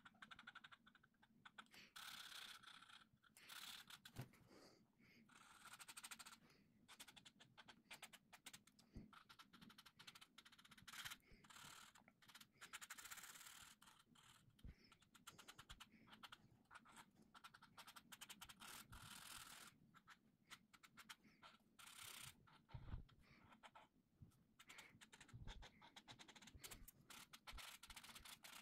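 Felt-tip marker scratching on coloring-book paper, faint, in short back-and-forth strokes with brief pauses between them.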